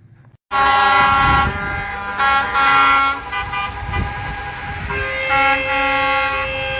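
Car horns from passing traffic honking again and again, several horns of different pitch overlapping. They start abruptly about half a second in.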